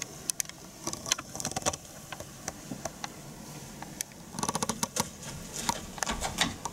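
A performer's footsteps and the rustle and rattle of a carried bag on a stage floor, in scattered light clicks with a quick run of them past the middle. A dull thump about six seconds in as the bag is dropped and he stumbles.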